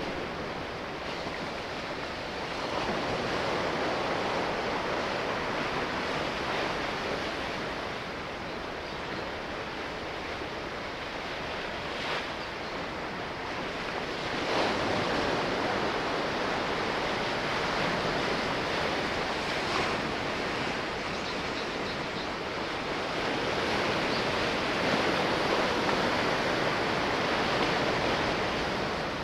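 Sea waves washing in the strait: a continuous rush of surf that swells and eases every several seconds.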